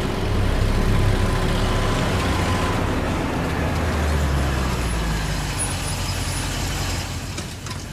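Old flatbed truck's engine running as it drives past on a dirt road and pulls away, the sound fading over the last couple of seconds.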